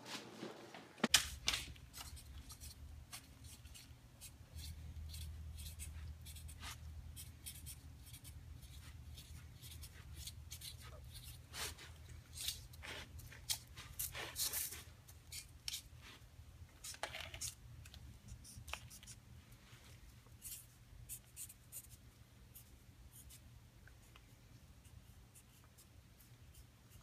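A pen scratching on paper in short, irregular strokes, over a low steady hum.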